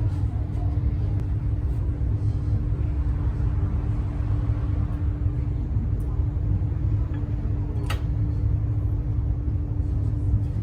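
Honda Step WGN minivan running, a steady low rumble with a steady hum, and a single sharp click about eight seconds in.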